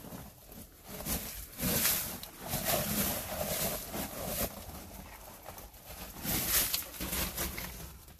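Footsteps on loose rock rubble: irregular crunches and clatters of stones under boots.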